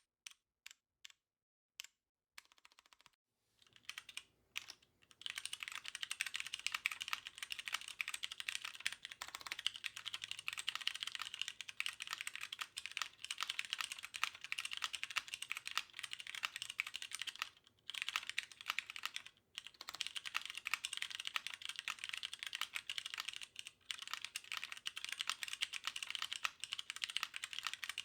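Typing on a custom mechanical keyboard with stock Cherry MX Hyperglide Brown tactile switches on a polycarbonate plate, with DCS-profile keycaps. A few single keystrokes at first, then fast continuous typing from about five seconds in, with a few short pauses.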